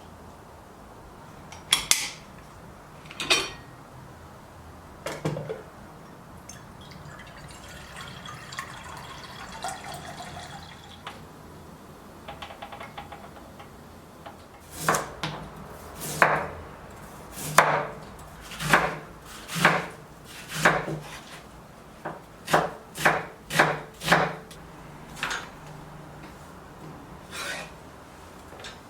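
Knife cutting on a wooden cutting board: a few single chops, then a steady run of cuts about one a second that comes quicker for a moment before it thins out.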